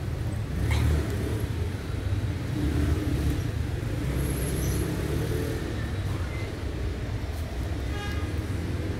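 Steady low rumble of road traffic. Near the end comes a short pitched call, a cat's meow.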